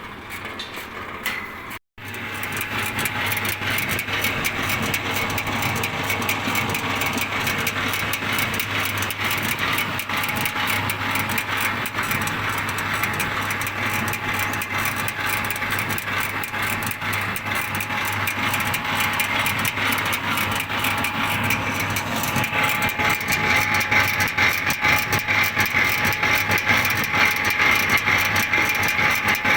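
Wood pellet machine running steadily, with a constant hum under a dense, rapid clatter that grows slightly louder near the end.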